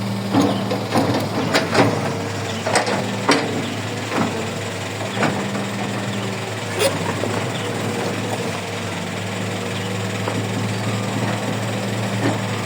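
Diesel engine of heavy earthmoving machinery running steadily with a low hum. Over the first seven seconds or so there is a string of sharp clanks and knocks, then mostly the engine alone.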